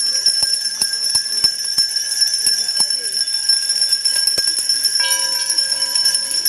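A crowd ringing many hand bells at once: a continuous jangle of overlapping strikes and sustained high ringing. About five seconds in, a lower-pitched bell joins.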